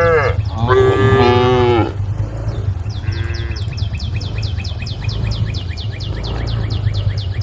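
Cattle mooing: two loud calls that fall in pitch near the start, and a faint third about three seconds in. From about three seconds, a fast run of high chirps, roughly seven a second, goes on over a steady low rumble.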